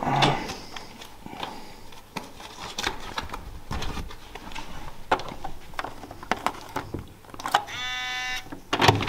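Clicks and knocks from handling a hotel room door and its handle in the dark, then a single steady electronic beep about a second long near the end.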